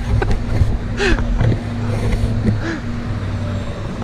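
Steady low engine rumble of a bus idling at the curb, with downtown street traffic around it.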